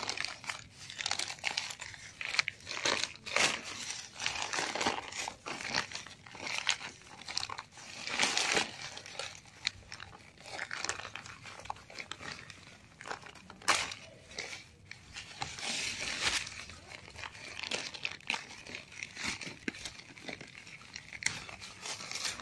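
Black plastic nursery bag crinkling and tearing in irregular rustles as it is peeled off a plant's root ball by hand.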